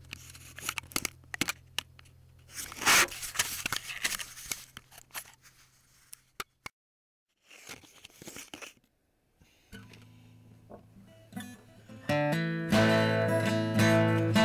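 Rustling and clicking handling noise for the first several seconds, then near silence. Acoustic guitar music comes in about ten seconds in and gets much louder about two seconds later.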